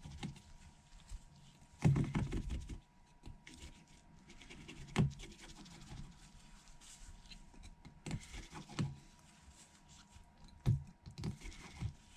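Small clicks, taps and scrapes of precision tools on an opened iPhone 8 as tiny bracket screws are backed out and set down one by one, with a louder cluster of knocks about two seconds in.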